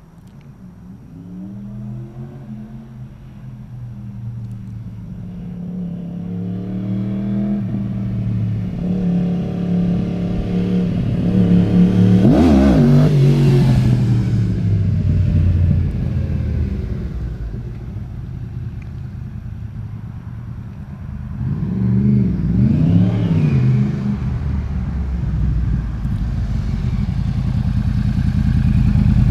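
Yamaha R1 crossplane inline-four sport bike engine on a test ride after a clutch rebuild. It revs up through the gears and is loudest about 12 seconds in, where its pitch drops sharply as it goes by. It rises and falls again around 22 seconds, then grows louder toward the end.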